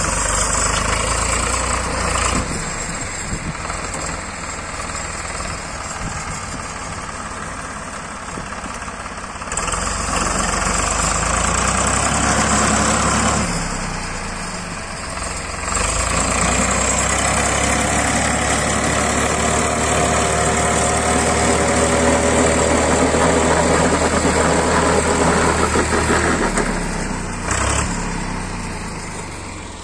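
Tractor engine running a rotavator that churns clay. The sound swells louder for a few seconds about a third of the way in, and again through most of the second half, easing off in between.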